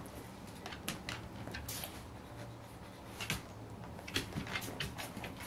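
Faint scattered rustles and light clicks as a tiny kitten scrambles from its back onto its feet on a fabric couch cushion.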